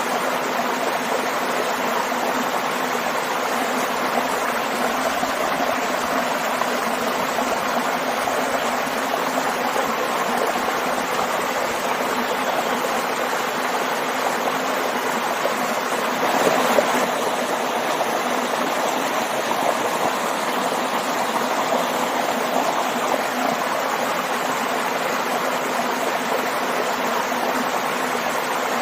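Stream and small waterfall rushing and splashing steadily, with a slightly louder splash about two-thirds of the way through.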